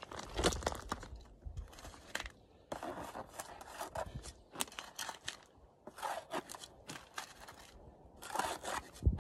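Plastic scoop scraping and scooping through loose red dirt in a string of short, irregular scrapes and pours, as a detected gold target that is out of the hole is sought in the dug soil. A sharp thump near the end.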